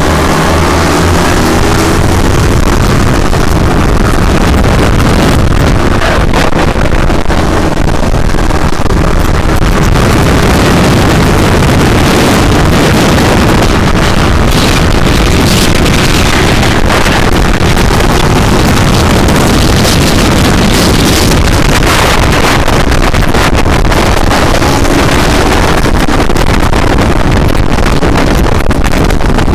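Motorcycle engine running under way, its pitch gliding up and down with the revs, under loud wind buffeting on the microphone.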